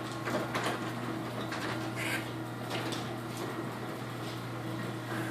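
Chamberlain Whisper Drive WD-832KEV belt-drive garage door opener running as it lowers a sectional door, with a steady low hum and no squeal. Several pops and clicks from the door's hinges and sections are heard along the way.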